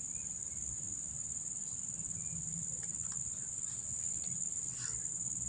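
Insects droning in a steady, unbroken high-pitched chorus, with a faint low rumble underneath.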